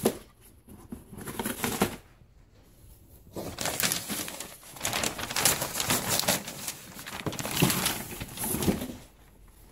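Cardboard and tissue paper rustling and crinkling in irregular bursts as an Alaskan Malamute noses and pulls at a torn-open box and the tissue wrapping is pulled out, with a brief lull in the middle.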